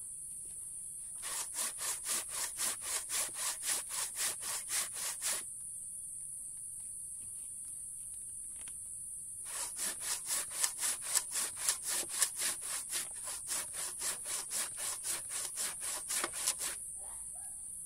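Handsaw cutting through very hard mangosteen wood by hand: two runs of quick back-and-forth strokes, about three or four a second, with a pause of about four seconds between them.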